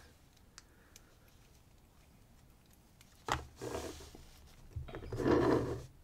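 Brass lock plug being handled and set down in a plastic tray: a sharp click a little after halfway, then two short stretches of rubbing and scraping.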